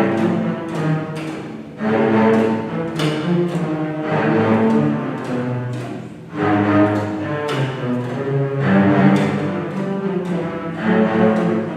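Ensemble of double basses playing together with the bow, in low, dense, accented phrases; the music drops back briefly just before about two seconds and about six seconds in, then comes in again loudly.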